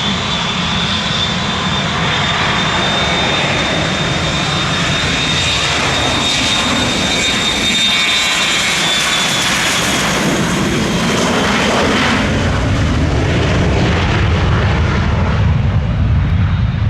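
Dassault Falcon 2000LX business jet's two Pratt & Whitney Canada PW308C turbofans running loud as the jet passes. A high, steady whine slides slightly down and fades after about ten seconds, while a deep roar builds toward the end.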